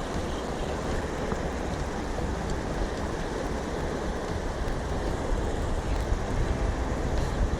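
Steady wind rumble on the microphone, a low even noise with a faint hiss above it.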